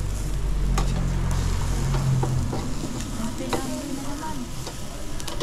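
Pork chops sizzling on a charcoal grill, with a few sharp clicks of metal tongs against the wire grate as the chops are turned. A low hum sounds under the sizzle for the first couple of seconds.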